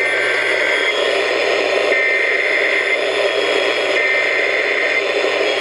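Emergency Alert System SAME header coming over a radio: three data bursts of about a second each, about a second apart, heard as harsh two-tone screeches over steady radio hiss and static. It marks the start of a relayed alert.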